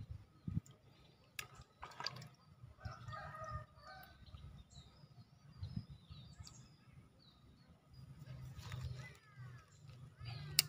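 Faint outdoor ambience of birds chirping and calling, with a low rumble underneath. A few sharp clicks, the loudest near the end.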